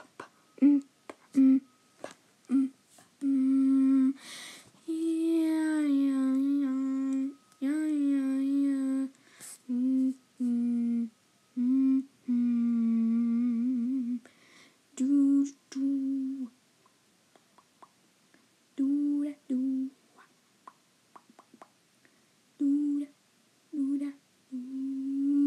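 A person humming a tune in short notes and phrases, some held steady and some wavering in pitch, broken by pauses, with a few short clicks in between.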